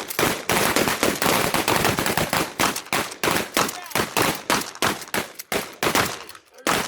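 Several shotguns firing in a rapid, overlapping volley from a line of shooters, with dozens of shots close together that thin out to a few spaced shots near the end.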